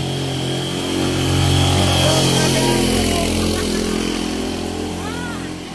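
Motorcycle-and-sidecar tricycle engine running as it rides past, growing louder to a peak about two seconds in, then fading as it moves away.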